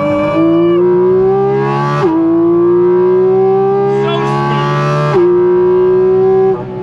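Porsche Cayman GT4 RS's 4.0-litre flat-six accelerating hard, heard from inside the cabin. The engine note climbs steadily and drops sharply at quick PDK upshifts about two and five seconds in, then eases off near the end.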